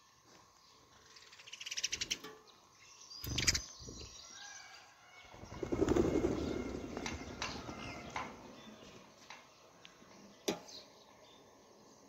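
A flock of rose-ringed parakeets taking off from the ground in a burst of wing flapping about six seconds in, dying away over the next two seconds. A few short sharp sounds come before it.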